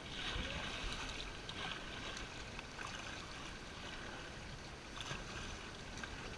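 Double-bladed kayak paddles dipping and splashing in river water, stroke after stroke, over a steady wash of moving water. The sound is muffled by a GoPro's waterproof case.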